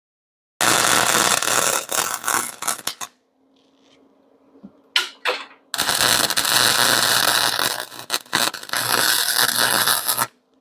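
Arc welder tack-welding steel exhaust pipe pieces together. There is a crackling weld of about two and a half seconds, then two short zaps around five seconds in, then a longer weld of about four and a half seconds. A faint steady hum can be heard between the welds.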